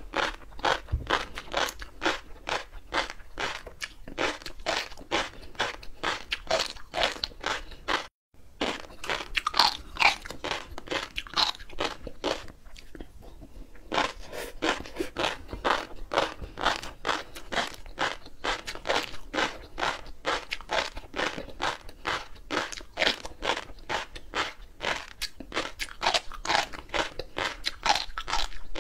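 Close-miked chewing of flying fish roe: a fast, continuous run of crunchy pops as the small eggs burst between the teeth, several a second. There is a brief silent break about eight seconds in.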